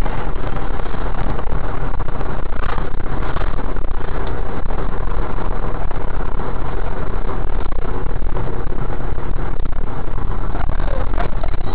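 Loud steady rumble of a coach bus on the move, heard from inside the passenger cabin: engine and road noise.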